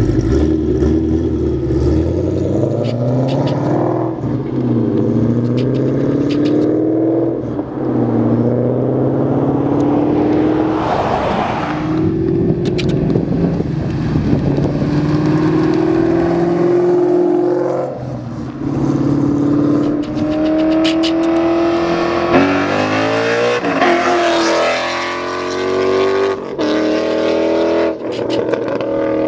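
2013 Ford Mustang Boss 302's 5.0-litre V8 through a loud aftermarket exhaust, revving up and down again and again as the car is driven hard. Short crackling pops from the exhaust come in between the revs, and there is a rush of noise about eleven seconds in.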